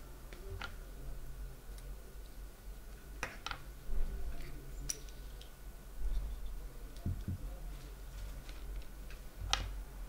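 Small, sparse metallic clicks and taps as the parts of a disassembled euro cylinder lock, its pins, springs and plug, are handled by hand and with tweezers. About five sharp clicks stand out, irregularly spaced.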